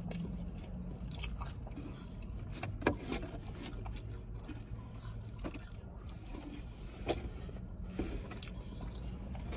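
Close-up chewing and mouth sounds of people eating fried chicken, with scattered short clicks, two louder ones about three and seven seconds in, over a low steady hum.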